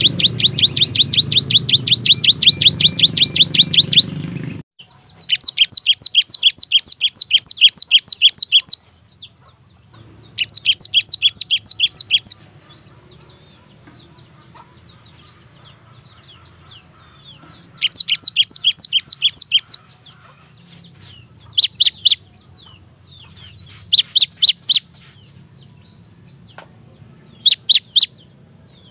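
Cinereous tit (gelatik batu) singing: quick runs of sharp repeated high notes, about ten a second, in bouts of a few seconds. The bouts shorten to bursts of two or three notes near the end.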